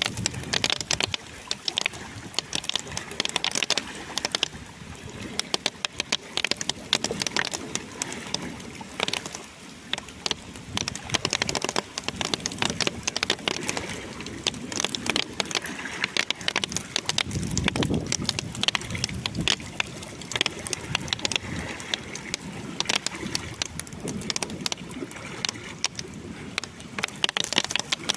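Heavy rainstorm: dense, irregular sharp ticks of drops striking a hard surface over a steady rush of rain. A low rumble swells about two-thirds of the way in.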